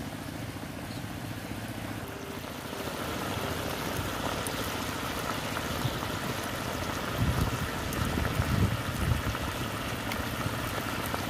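Chilli soybean sauce boiling hard in an iron wok over a wood fire, bubbling steadily. A few louder low rumbles come about seven to nine seconds in.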